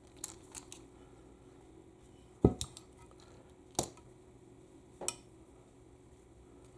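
Metal tools and small transmission valve parts clinking and knocking on a workbench: a few light clicks, then three louder knocks roughly a second and a quarter apart.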